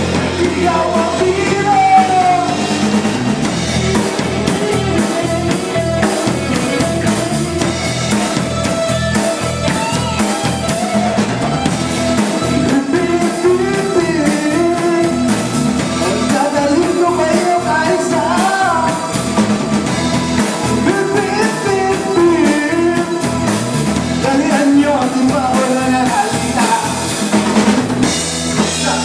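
A live band playing a rock song: a drum kit keeps a steady beat under guitar and a melody line.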